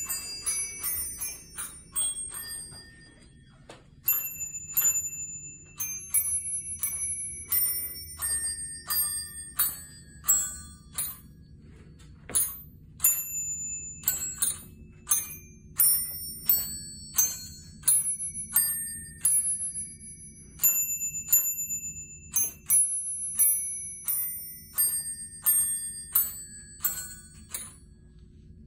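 Musical Christmas bell chime set, with Santa figures striking a row of small brass bells one note at a time to play a carol melody, each note ringing on briefly. There is a short pause about three seconds in before the tune picks up again, and a steady low hum runs underneath.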